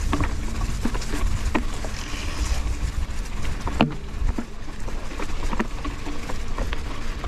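Mountain bike riding over rough, rocky ground: scattered knocks and clicks from the tyres and rattling bike over a steady low rumble.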